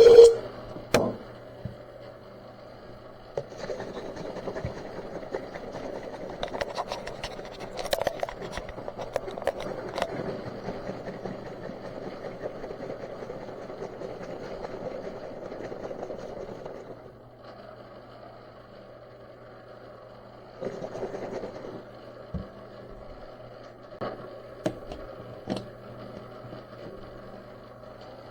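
Cerakote coating being mixed in its container: a steady working noise with a few clicks that starts a few seconds in and stops past the middle, then a shorter bout later, over a low electrical hum.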